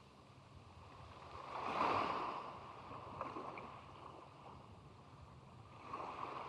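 Sea waves breaking and washing on the shore: one surge swells and fades about two seconds in, and a smaller one comes near the end.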